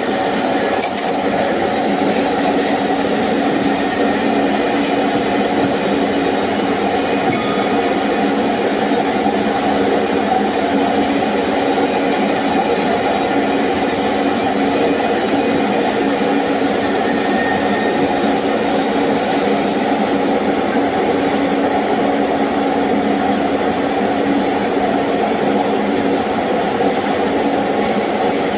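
Steady hissing drone of TIG welding on pipe during a capping pass, holding an even level with no breaks.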